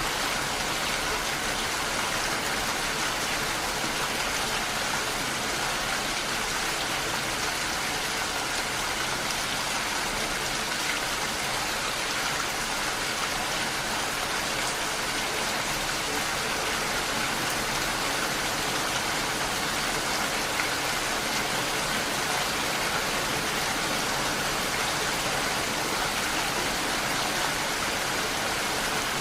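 Steady rain, drops pattering on window glass, an even hiss with no letup.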